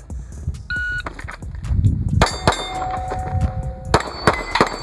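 A shot timer beeps once, about a second in. From a little after two seconds, a run of rapid gunshots follows, with steel targets clanging and ringing as they are hit.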